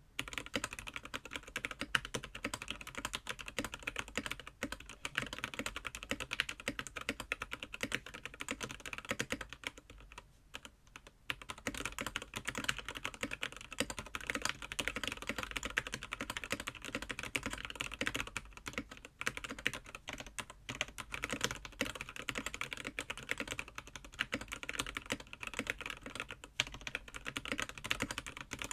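Typing on a Technieer TKL mechanical keyboard with unlubricated Gateron Milky Yellow linear switches, stock stabilisers and XDA keycaps: fast, continuous key clacks, with a short pause about ten seconds in.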